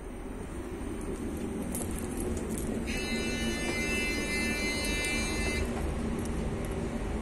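Low rumble inside a ČD class 471 CityElefant electric double-deck train, growing slightly louder. From about three seconds in, a high ringing tone with several pitches together is heard for about two and a half seconds, then stops abruptly.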